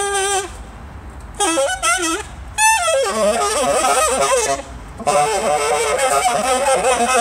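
Saxophone played free-jazz style: short broken bursts of notes with pauses, a high wavering squeal about two and a half seconds in, then long warbling runs.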